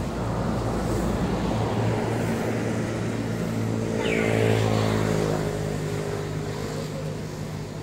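A motor vehicle engine running steadily, growing louder about halfway through and then fading as it passes. A short high chirp falling in pitch cuts in about four seconds in.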